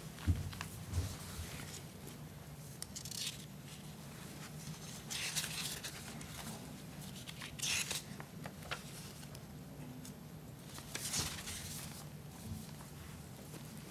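Paper sheets being handled, rustling in several short bursts over a faint, steady low room hum.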